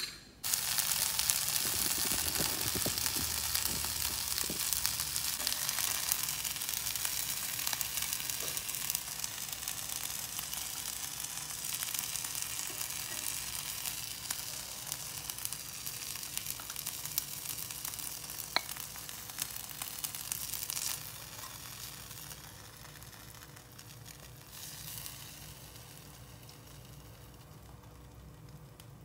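Soy-glazed eggplant slices sizzling in a hot cast-iron skillet, with a few clinks of metal tongs as they are turned. The sizzle starts suddenly and drops to a quieter hiss about two-thirds of the way through.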